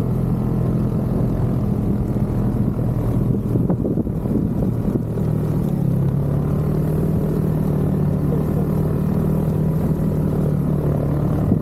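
Snowmobile engine running steadily under way, its pitch shifting slightly about halfway through.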